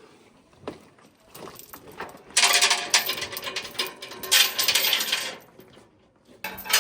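Heavy steel tie-down chain rattling and clinking link against link as it is pulled through, in two loud runs: the first about two and a half seconds in, lasting nearly three seconds, and another starting near the end.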